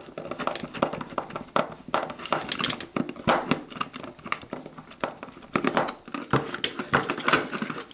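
Screwdriver driving self-tapping screws into a plastic telephone socket box: a busy run of irregular small clicks, creaks and scrapes from the screw and the handled plastic.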